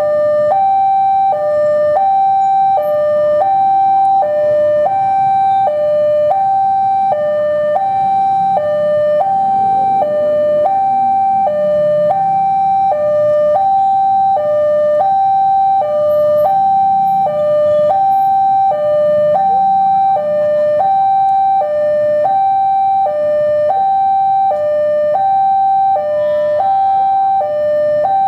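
Railway level-crossing warning bell (genta) sounding its electronic two-tone alarm, a high tone and a lower tone alternating steadily, just over one high-low pair a second, while the barriers are down for an approaching train. Faint road-traffic rumble underneath.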